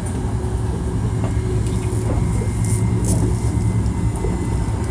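Hankyu 1300 series electric train running, heard from inside the car: a steady low rumble of wheels and running gear, a faint steady motor tone, and a few light clicks.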